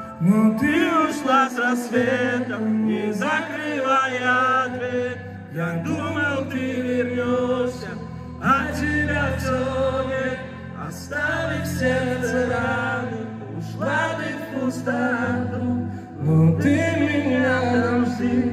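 Live male singing through a concert hall's PA, in long wavering phrases every few seconds over sustained keyboard chords, heard from the audience.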